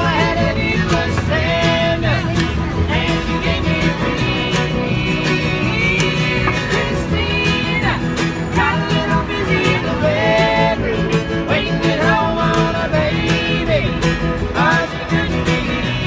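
Acoustic string band playing a folk-bluegrass song live: bowed fiddle, strummed acoustic guitar and plucked upright double bass, with a woman singing the lead.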